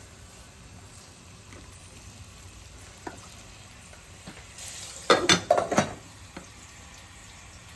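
Glass lids set down on two saucepans: a quick clatter of knocks and rattles with a short ringing tone, about five seconds in.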